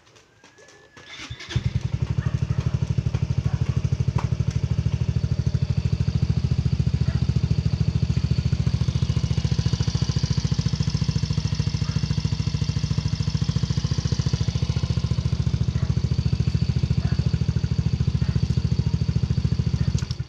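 Yamaha Mio i 125S scooter's single-cylinder 125 cc engine started about a second and a half in, then idling steadily with an even, rapid pulse. It is switched off and stops abruptly near the end.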